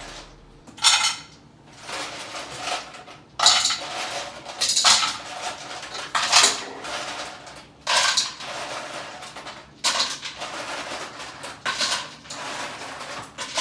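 Ice cubes clattering as they are gathered and dropped into a bowl, in a series of rattling bursts about every one to two seconds.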